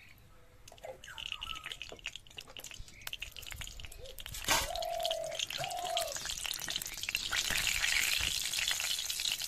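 Mustard oil heating in a metal kadai, crackling and sizzling with fine pops that build toward the end as the oil gets hot. About halfway there is one sharp pop, followed by two short whistle-like tones.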